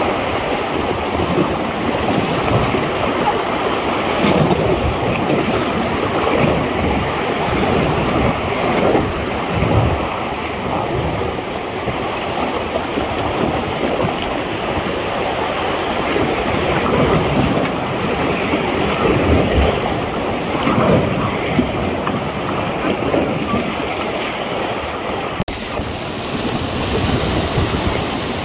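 Whitewater rapids rushing steadily around an inflatable raft, loud and continuous, with gusts of wind buffeting the microphone.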